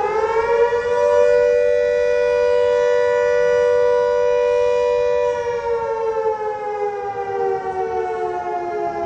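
Outdoor tornado warning siren sounding on test, two close notes together: its pitch climbs in the first second, holds steady for about four seconds, then slowly winds down.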